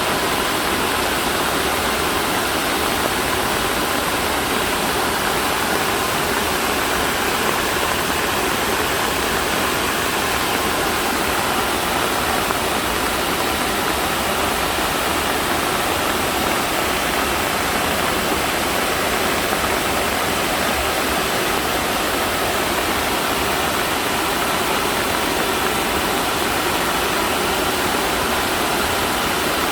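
Heavy rush of floodwater pouring out of a reservoir after monsoon rain, a loud, steady roar of falling and churning water.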